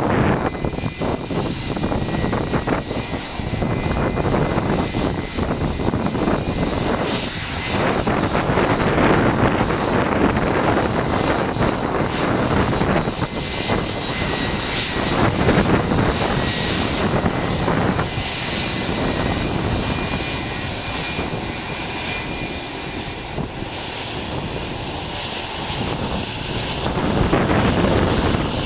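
Boeing 757-300's jet engines, a loud steady roar with a faint high whine. It eases a little past the middle and swells again near the end.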